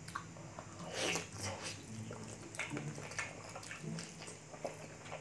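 Wet eating sounds of tender braised pork leg: soft meat squishing as it is pulled apart by hand, then mouthful chewing and lip-smacking. A run of short wet clicks, loudest about a second in.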